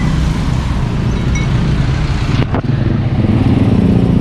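Motorcycle engines and road traffic running close by, a steady low drone with a brief break about two and a half seconds in.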